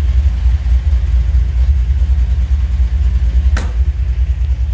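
Chevy C10's LS V8 idling with a deep, steady low rumble. A single sharp click about three and a half seconds in.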